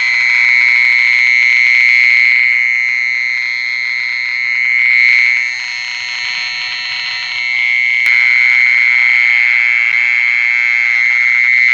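A continuous shrill, high-pitched alarm-like tone with overtones, dipping in loudness for a couple of seconds near the middle. There is a single click about eight seconds in.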